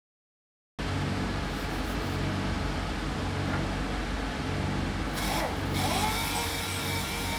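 A small power tool running with a steady hiss, starting abruptly just under a second in. About five seconds in, a motor whine rises and holds, then drops away near the end.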